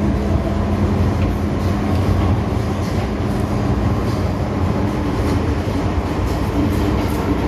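Interior noise of an MTR M-Train metro car under way: a continuous rumble of the wheels on the rails with a steady hum running through it.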